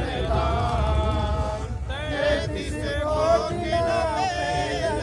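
A man's voice singing in a chanting style, holding long, wavering notes with short breaks between phrases.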